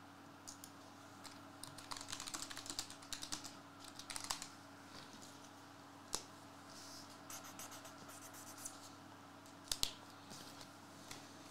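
Faint flurries of quick, light clicks and taps at a desk over the first few seconds, then a few single clicks about six and ten seconds in.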